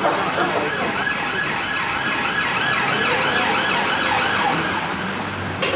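Emergency vehicle siren on a fast yelp: a tone rapidly rising and falling about three to four times a second, over traffic noise.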